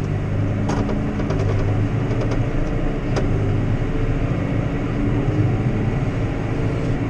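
Valtra tractor's diesel engine running steadily as the tractor drives, heard from inside the cab, with a few light clicks.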